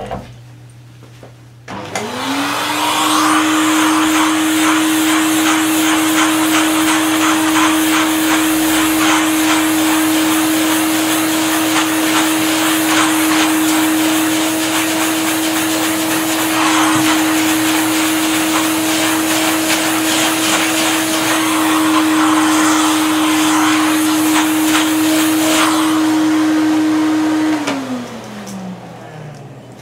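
Vacuum cleaner switched on about two seconds in, its motor spinning up to a steady whine with a loud rush of air while chips and dust are sucked off a carved MDF panel. Near the end it is switched off and the whine falls in pitch as the motor runs down.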